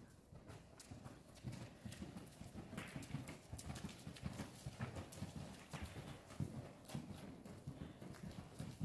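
Hoofbeats of a ridden Gypsy cross gelding: a steady run of soft, low thuds, several a second, from hooves striking dirt arena footing.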